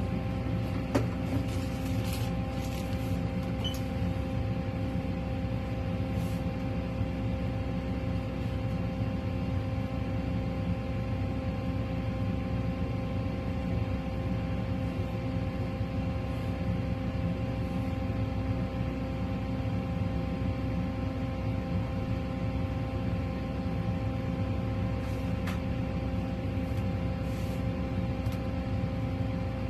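Steady machine hum: a few fixed tones over a low rumble, with a few faint clicks in the first seconds and again near the end.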